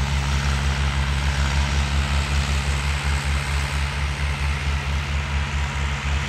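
Tractor diesel engines running steadily under load as they pull tine cultivators through tilled soil, a low drone with a slight pulsing beat.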